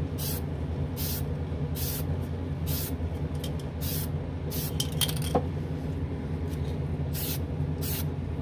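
Aerosol spray can of Testors Extreme lacquer paint giving short spritzes, about one a second with a pause in the second half: light dust coats. Under it runs the steady hum of the spray booth's exhaust fan.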